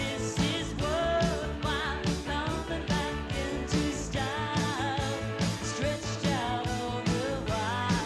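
Country-rock recording playing, with a steady drum beat under a bending melody line of voice or lead guitar.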